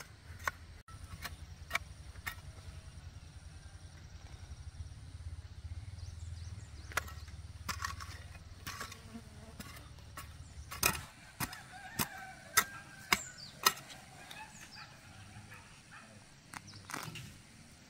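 Hand-tool chopping: scattered sharp knocks, then five loud strikes about half a second apart near the middle. A low steady hum lies underneath and stops about eleven seconds in.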